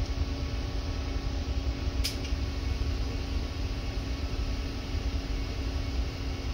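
Siemens Symbia S gamma camera gantry repositioning its detector heads: a steady, low mechanical hum of the drive, with one sharp click about two seconds in.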